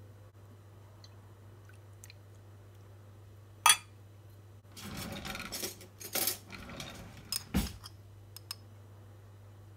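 A metal spoon and seasoning bottles clinking against a glass baking dish as sauces are measured out: one sharp clink a little over three and a half seconds in, then about three seconds of clattering and handling noise, with a dull thump near the end.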